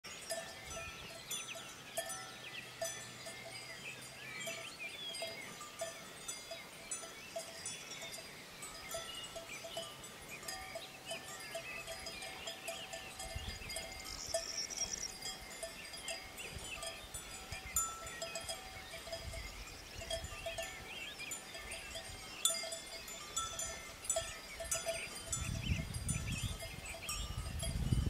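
Grazing cattle with a bell clinking on and off, birds chirping, and many short crackling ticks; a low rumble comes in near the end.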